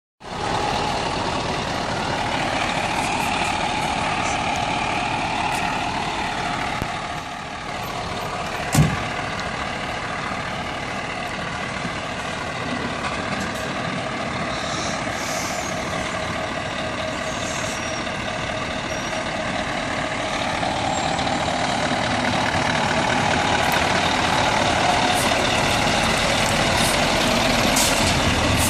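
Scania R500's V8 diesel engine idling steadily, with one sharp knock about nine seconds in. The engine sound grows gradually louder toward the end.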